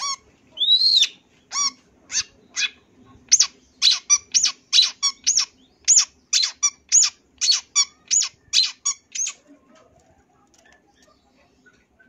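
Long-tailed shrike (cendet) calling: a rising-then-falling whistled note, then a fast run of short, harsh notes, about three a second, which stops about nine seconds in.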